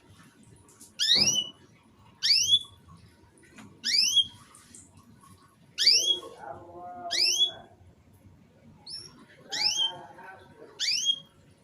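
Domestic canary giving short rising call notes, about seven in all, each a quick upward sweep repeated every second or two. A fainter, lower-pitched sound runs under two of the calls about halfway through and again near the end.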